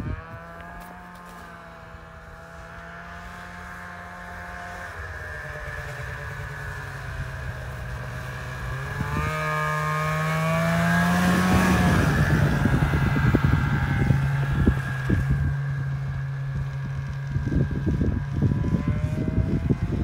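Snowmobile engine running as the sled approaches, growing steadily louder, then passing close about eleven seconds in with its pitch rising and then dropping. It moves off afterwards, with wind buffeting the microphone through the second half.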